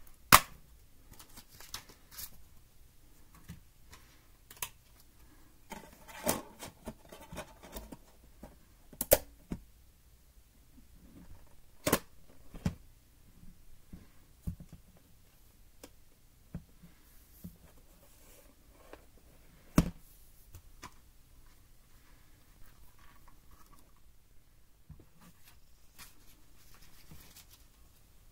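Scattered sharp clicks and knocks with soft rustling from hands handling a portable DVD player and its cables, the loudest clicks about half a second in and around 9, 12 and 20 seconds.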